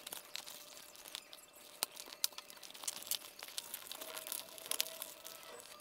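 Rustling, scratching and crinkling of helmet liner fabric and padding being pulled at by hand, with irregular small clicks, as the old intercom speakers are worked out of the helmet.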